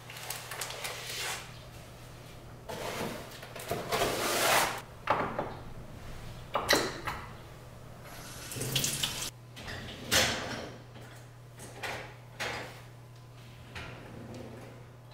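A run of short handling noises at a kitchen sink: rustling plastic and clicks and knocks as a countertop soap dispenser is fitted and pressed. A steady low hum runs underneath.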